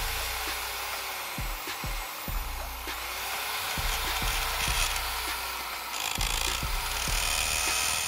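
A Dong Cheng DZJ02-13 500 W electric hammer drill runs with its bit boring into a glazed tile. The motor's pitch sags as the bit is pressed down and picks back up, twice: about three seconds in and again near six seconds.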